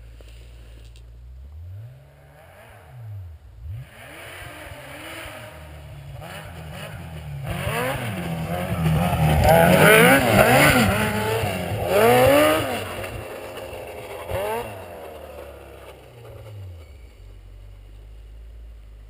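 Yamaha Apex MTX snowmobile's four-cylinder four-stroke engine running, with the revs rising and falling repeatedly as it builds to a loud peak in the middle and then drops back to a low run.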